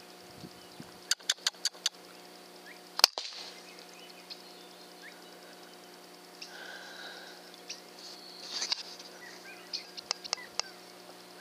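A single sharp air rifle shot about three seconds in, the loudest sound, with a brief crack and short tail, preceded by a quick run of five small clicks. Faint chirps and clicks follow over the steady low hum of the scope camera's recording.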